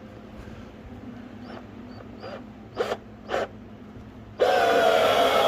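A few short squeaks and clicks, then a small electric motor starts abruptly near the end and runs with a steady whine that sinks slightly in pitch: an electric jack lifting the car.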